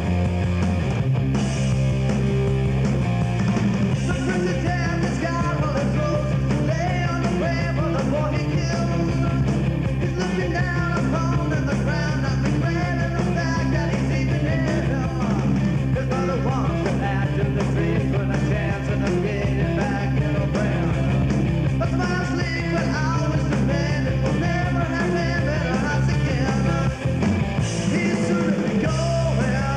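Loud punk rock music from a full band, with a steady driving beat and singing.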